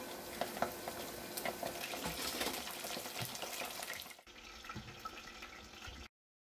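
Starch-coated chicken pieces deep-frying in hot oil in a stainless steel pot: a steady sizzle full of crackling pops. It drops a little in level about four seconds in and cuts off abruptly near the end.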